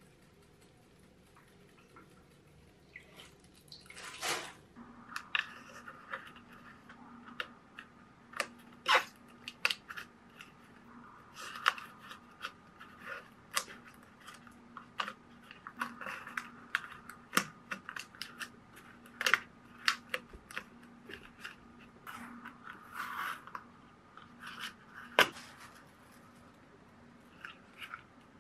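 Hands working a clear plastic water bottle, cut with scissors and its cut rim wrapped in tape: an irregular run of sharp clicks, crackles and short scrapes of thin plastic. It starts about four seconds in, after a quiet opening.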